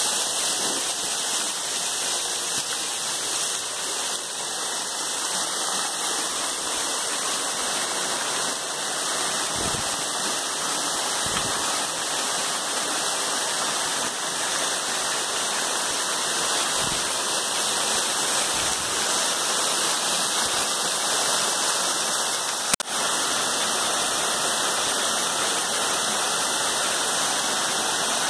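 Small waterfall pouring in strands over rock ledges onto rocks and into a pool, a steady rush and splash of water heard close up. A single sharp click sounds about three-quarters of the way through.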